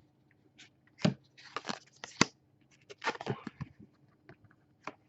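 2016 Panini Prizm football trading cards being handled and slid over one another: a handful of irregular short scrapes and clicks with brief pauses between, the loudest about a second in and just past two seconds in.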